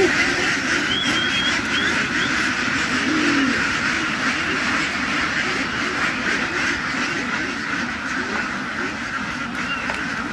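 A large flock of domestic ducks quacking together in a steady, dense chatter.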